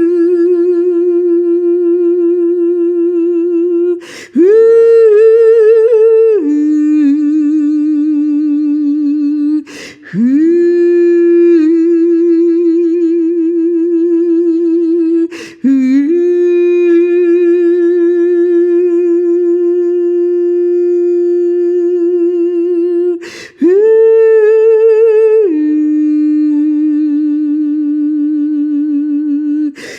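A woman's voice singing long, wordless held tones with a slow vibrato, breaking for a quick breath four times. Most phrases start on a higher note and step down to a lower one partway through.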